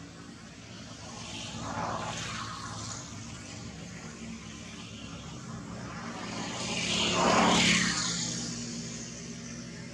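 An engine passing by twice, swelling and fading each time, the second pass louder.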